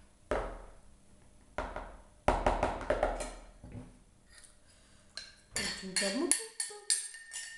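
Dough being worked by hand in a plastic bowl, with a few dull knocks, then about five seconds in a quick run of sharp clinks of a ceramic bowl and spoon as milk is tipped into the mix.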